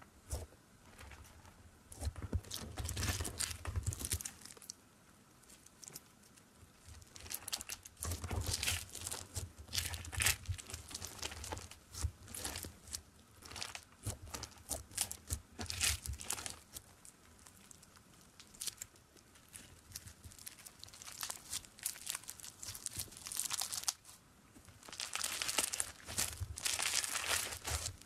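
Fingers pressing, poking and squeezing black glittery slime, giving irregular runs of sticky crackling and popping, with quieter pauses between the squeezes.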